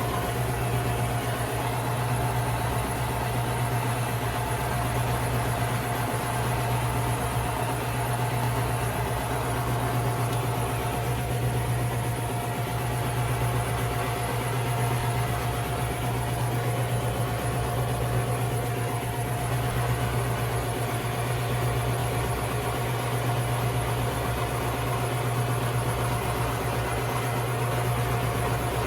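Handheld gas torch burning steadily, a continuous low rush with hiss as its flame scorches the surface of carved white cedar.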